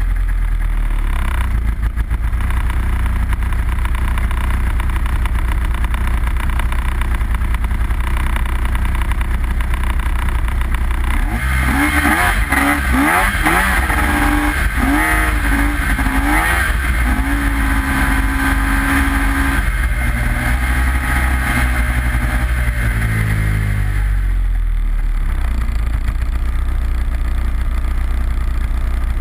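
An engine idling, revved up and down several times about halfway through, held at a higher pitch for a few seconds, then let fall back to idle.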